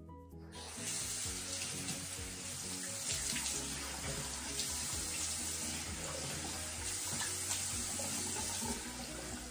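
Bathroom sink tap running into the basin while a clay face mask is splashed and rinsed off the face. The water comes on about half a second in and shuts off just before the end.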